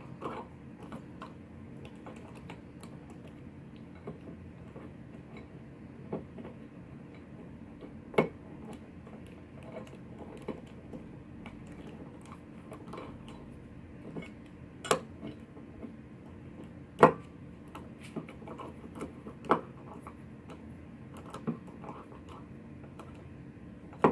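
Scattered sharp clicks and taps of a screwdriver and steel front sight against a pistol slide as the sight screw is driven in, a few seconds apart, over a faint steady hum.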